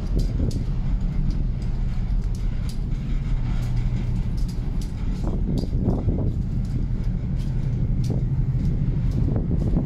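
Steady low drone of a container ship under way, its engines and machinery running, mixed with wind and the wash of the sea. Faint irregular ticks of footsteps on the steel deck sound over it.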